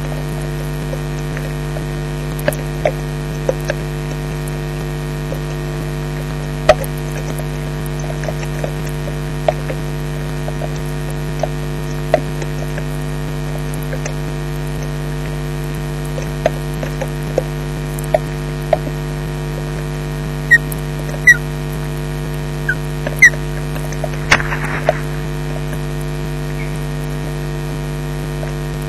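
Steady electrical mains hum in a nest camera's microphone feed, with scattered sharp clicks throughout. A few short high chirps come about two-thirds of the way in, followed by a brief rasp.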